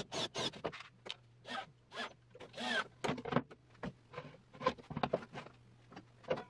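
Fast-forwarded workshop sounds of a cordless drill driving screws and wood being handled: a quick, uneven string of short chirps and clicks that chatter together like a zipper.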